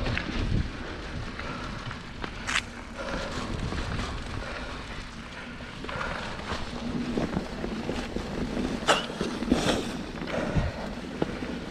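Mountain bike riding over a dirt trail: steady rolling tyre noise and rattle, with wind on the microphone and a few sharp knocks as the bike hits bumps, one a couple of seconds in and a cluster near the end.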